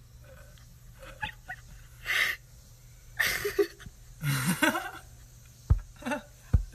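Breathy, laughing huffs and gasps in short bursts, then two dull knocks on a glass pane near the end.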